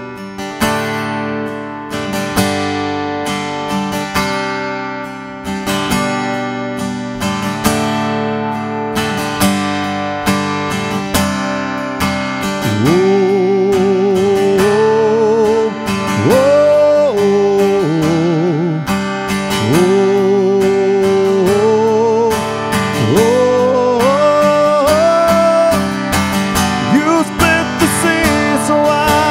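Acoustic guitar strummed through an instrumental passage. About twelve seconds in, a man's voice comes in over it, singing long held notes with vibrato that slide up into each pitch.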